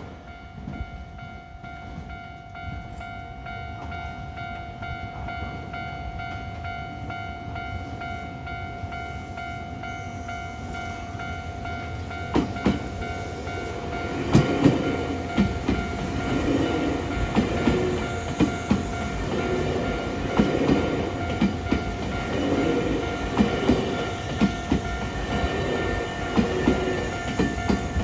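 Level crossing warning bell ringing steadily while a Nankai electric train approaches and, from about halfway through, runs over the crossing, its wheels clacking in a regular rhythm over the rail joints.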